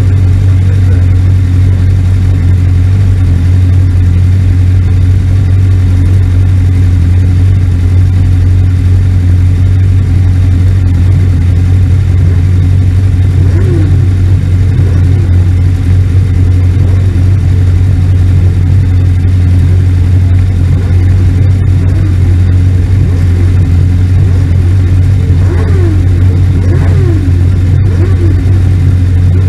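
Race car's engine idling steadily, heard from inside the open cockpit while stationary, with a few brief rises and falls in pitch.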